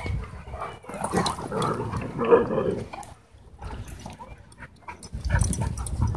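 Dogs vocalizing while they play-wrestle, a few short calls clustered in the first half, with a low rumble near the end.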